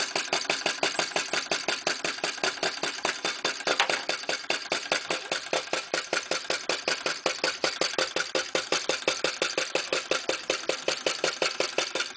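Fire-eater (flame-licker) model engine running steadily: a fast, even beat of sharp clicks as it gulps the flame in through its valve every cycle.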